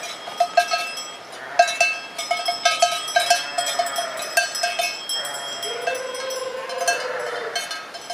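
Sheep bells clanking irregularly as a flock of sheep moves along, with one long wavering sheep bleat about six seconds in.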